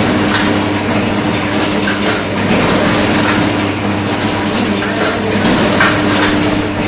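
Automatic paper dona-making machine running, pressing silver-foil paper bowls with a continuous mechanical clatter of short knocks over a steady hum.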